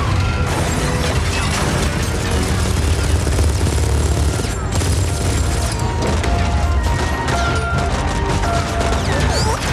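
Dense action-film soundtrack: a dramatic music score over a steady deep vehicle rumble, with booms, crashes and rapid gunfire from the armoured truck's roof-mounted gun.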